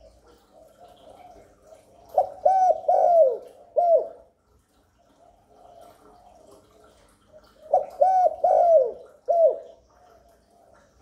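Spotted dove cooing: two phrases of about four falling coos each, a few seconds apart, with soft low cooing between them.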